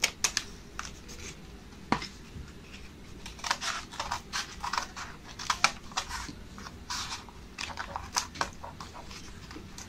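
Scissors cutting through corrugated cardboard: short snips coming in irregular bunches of several at a time, with a single sharp click about two seconds in.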